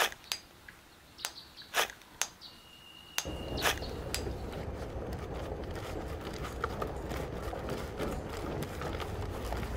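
A few sharp knocks and clinks of pick and shovel work, with a brief steady ringing tone near three seconds in. Then a louder, steady rumbling clatter with many small clicks takes over.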